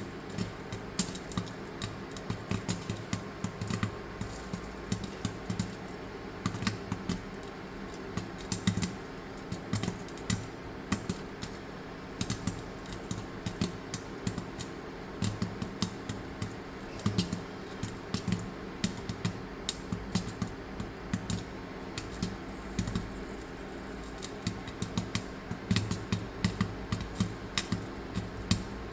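Popcorn kernels popping in hot coconut oil in a thick stainless steel pot: irregular sharp pops, sometimes several in quick succession, over a steady low hum.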